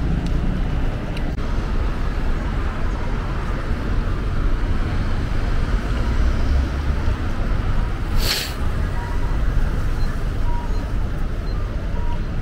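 Town street ambience: steady low rumble of road traffic with background voices, and a short burst of hissing air a little past the middle.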